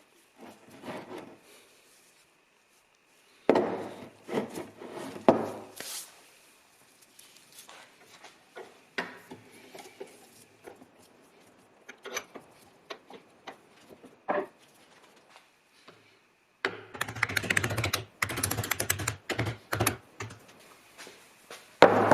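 Work on a rusty old hand drill's metal and wooden parts: irregular clicks, knocks and clatter, with a spell of loud knocking and scraping about four seconds in and a longer dense scratchy scraping near the end.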